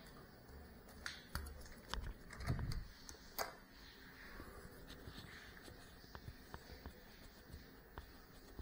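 Handling noise of a small action camera being picked up: a cluster of knocks, clicks and low thuds on its microphone over about two seconds, followed by faint scattered ticks.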